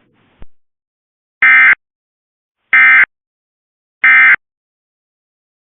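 Emergency Alert System end-of-message signal: three short, identical digital SAME data bursts about 1.3 seconds apart, marking the end of the alert. A brief click comes about half a second before them.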